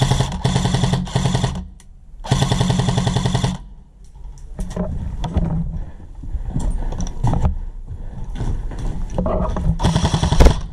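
Airsoft electric gun firing full-auto in rapid bursts: two long bursts of about a second and a half each near the start, and a shorter one near the end. Between the bursts come scattered clicks and rustling.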